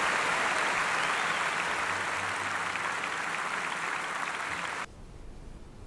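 Live concert audience applauding, easing off slightly, then cut off abruptly near the end.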